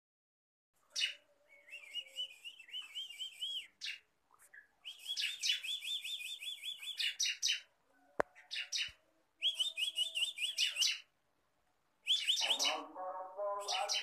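A caged ciblek, a small prinia, singing in phrases of fast, rapidly repeated high chirps, each phrase lasting one to three seconds with short pauses between them.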